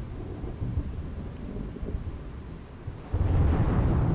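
Thunderstorm sound effect: rain with low, rolling thunder, swelling into a louder thunderclap about three seconds in.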